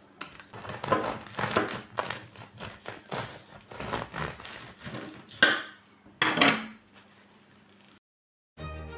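Bread knife sawing through the crisp crust of a freshly baked homemade loaf: a run of crackling crunches, with two louder crunches about five and six seconds in as the loaf is cut through. Music comes in at the very end.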